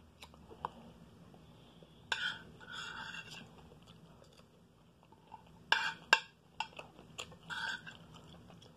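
A person eating fried rice from a plate with a utensil: a few short bursts of chewing and mouth sounds and sharp clicks, the loudest about six seconds in.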